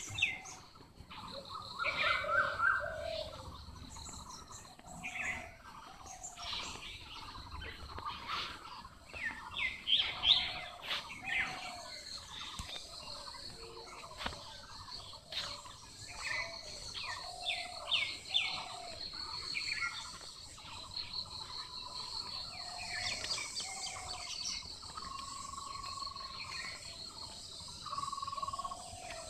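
Several birds chirping and calling, short chirps and whistled notes in varied patterns, with a few longer held whistles near the end. A steady high insect hum runs underneath.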